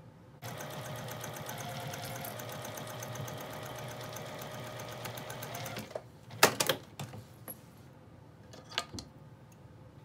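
Juki sewing machine stitching a quarter-inch seam at a steady, even speed for about five and a half seconds, then stopping. A few sharp clacks and clicks follow as the fabric is handled; the first of these is the loudest sound.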